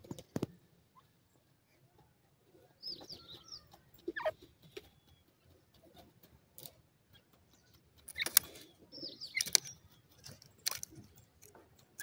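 Grey francolins dust-bathing in dry sand: irregular scratching, scuffing and rustling of sand and feathers, with the sharpest scuffs about eight and nine and a half seconds in. A few short, high squeaky bird chirps come about three and nine seconds in.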